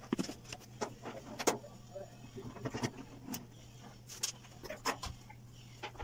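Screws being taken out of a Maytag washer's sheet-metal cabinet with a screwdriver and the front panel being worked off: a string of sharp, irregular clicks and knocks of metal and plastic.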